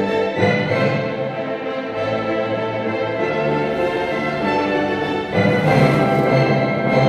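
Orchestral music with bowed strings, played back over a home-theatre surround speaker system; the orchestra swells louder and fuller about five seconds in.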